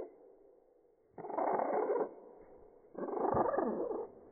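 Budgerigar chatter slowed down with the slow-motion footage. It comes as two bursts of about a second each, the second starting about a second after the first ends.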